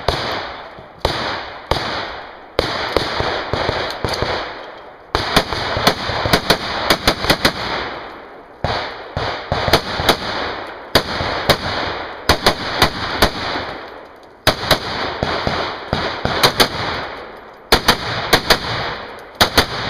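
Rainier Arms RUC AR-15 rifle with a 16-inch barrel being fired: a few single shots at first, then rapid strings of shots with pauses of a second or more between them. Each string trails off in a short echo.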